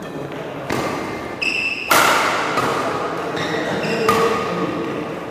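Badminton rally: rackets striking the shuttlecock several times, sharp hits that ring on in a large echoing hall, with short squeaks of shoes on the court floor between them.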